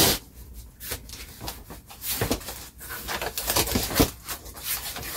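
A long cardboard shipping box handled and worked open by hand: irregular short rubs, scrapes and taps of hands on cardboard.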